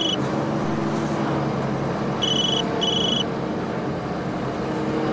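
A mobile phone ringing in short pairs of high electronic trills, one pair about two seconds in and the next starting near the end. Under it runs the steady drone of a bus engine.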